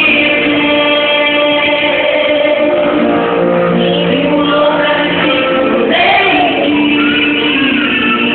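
Christian worship song with singing, played loudly and steadily.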